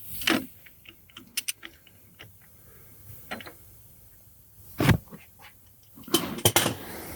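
Small metal parts and tools being handled while gear-shift linkage parts are refitted. They make irregular light clicks and taps, one louder knock about five seconds in, and a quick run of clicks near the end.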